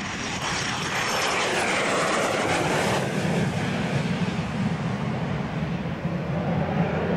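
Twin turbojet engines of a Cessna A-37 Dragonfly jet making a low pass. The jet noise grows louder as it goes by, with a whine that falls in pitch over the first few seconds, then a deep rumble builds as it banks away and climbs.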